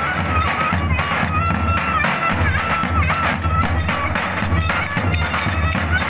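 Turkish folk band playing outdoors: davul bass drums beating a steady heavy rhythm under a reedy wind instrument playing an ornamented melody with held notes, slides and trills.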